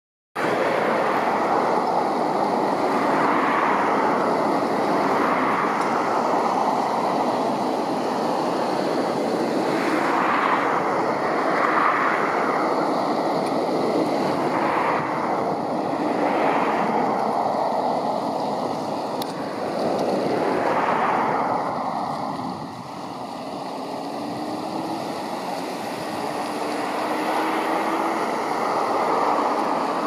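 Steady rush of flowing river water, swelling and easing every few seconds and a little quieter from about two-thirds of the way through.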